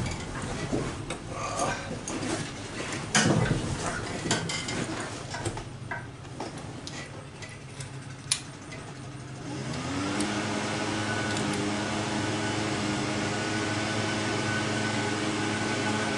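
Light metal clicks and taps from hands working a carburetor's choke linkage. About ten seconds in, a steady machine hum starts up, rising briefly in pitch before settling, and runs on evenly.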